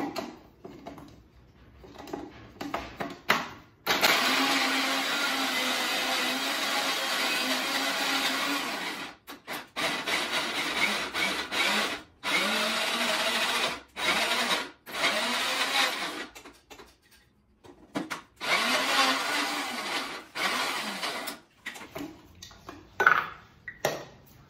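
Small electric chopper grinding walnuts to a powder. Its motor runs for about five seconds, starting about four seconds in, then runs in several shorter pulses, each spinning up and winding down. A few clicks from the jar being handled come before the first run.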